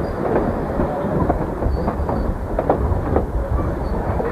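Excursion train rolling across a high bridge, heard from on board: a steady low rumble of wheels on rails with scattered sharp clicks.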